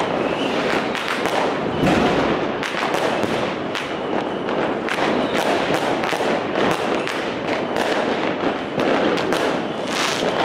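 A dense barrage of firecrackers and aerial fireworks: many bangs and crackles overlapping, several a second, without a pause.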